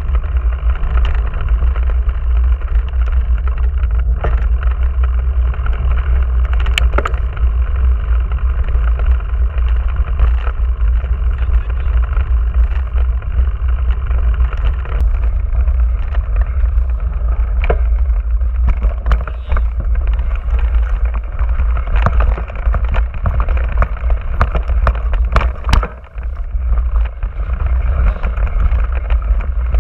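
Giant Trance 27.5 mountain bike riding over a bumpy dirt and grass track, heard through a camera mounted on the handlebars: a heavy, constant low rumble of wind and vibration with scattered sharp knocks as the tyres hit bumps, and a brief lull near the end.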